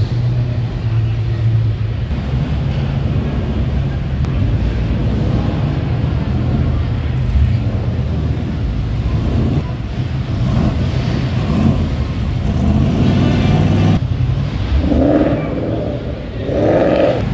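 Performance car engines rumbling at low speed as cars drive slowly past one after another, with occasional revs.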